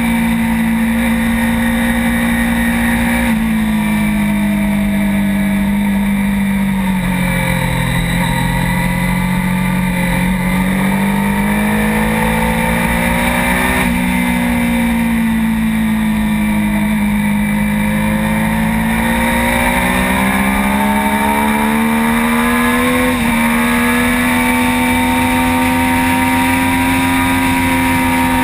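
Sport motorcycle engine running hard at track speed, heard from a camera mounted on the bike, its pitch sliding slowly down and back up over several seconds as the revs change through the corners, with a few sudden small jumps in pitch, over steady rushing wind. The pitch dips sharply at the very end.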